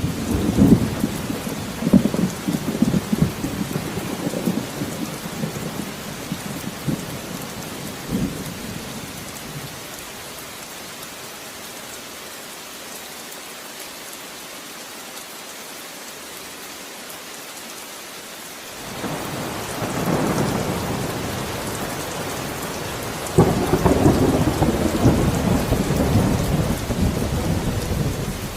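Steady rain with rolling thunder. A long rumble runs through the first third. Then there is rain alone for about ten seconds, before thunder rolls in again and swells louder toward the end.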